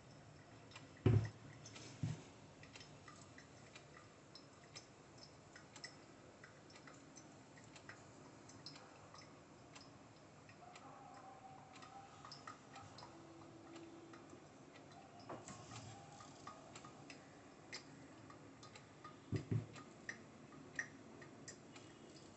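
A gooseneck kettle set down on a wooden table with a knock about a second in and a lighter one a second later, then faint irregular small ticks, and two more knocks near the end as the kettle is picked up and handled.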